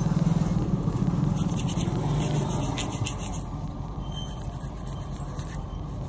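Steady low engine rumble of nearby road traffic, with a few brief light scraping sounds between about one and a half and three seconds in.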